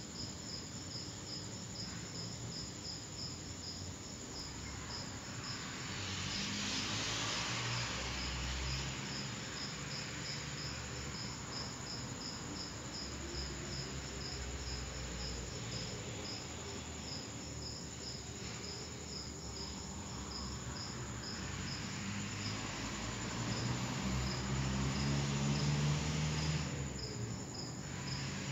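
Crickets chirping in a steady, evenly spaced rhythm, with a low rumble that swells twice.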